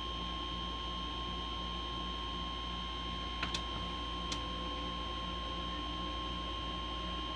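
Steady audio test tone, one unchanging high pitch, running through a CB radio for a modulation check, over a low electrical hum. Two light clicks come about three and a half and four and a half seconds in.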